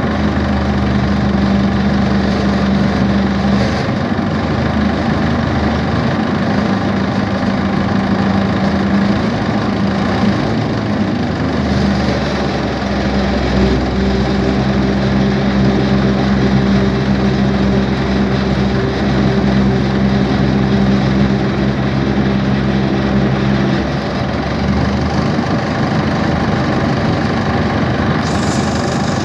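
Tractor diesel engine running at a steady speed with a New Vishwakarma tractor-drawn reaper hitched to it. It gives a constant mechanical drone whose steady hum fades for several seconds and drops away about five seconds before the end.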